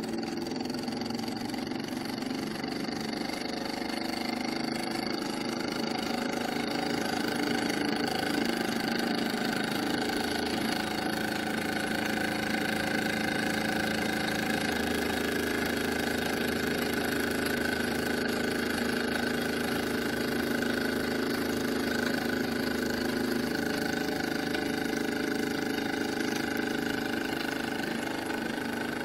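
Polly model vertical-boiler steam engine, built to Tubal Cain's design, running steadily under steam.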